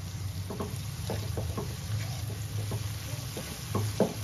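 Silicone spatula stirring and scraping a spice masala of onions, tomatoes and green chillies frying in oil in a nonstick wok, with soft strokes about two a second, the strongest near the end, over a low steady hum.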